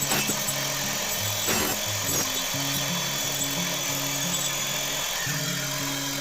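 Circular saw running steadily as it cuts through wooden battening, with background music.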